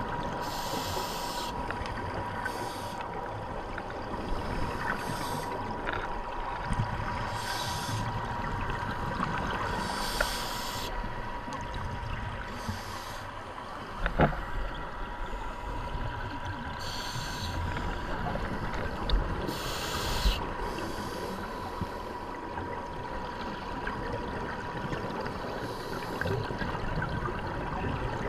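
Scuba diver breathing through a regulator underwater: a hiss with each inhale every two to three seconds, between them a low bubbling from the exhales. A faint steady high tone runs underneath, and there is one sharp click about 14 seconds in.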